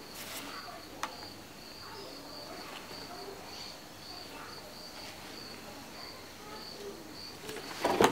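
Insect chirping steadily in the background, a high even pulsing note a little over two pulses a second. A sharp click comes about a second in, and a brief louder sound near the end.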